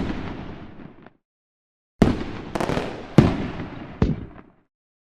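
Fireworks bursting in sharp bangs, each dying away over about half a second to a second. One bang comes right at the start, then after a second of silence four more follow in quick succession.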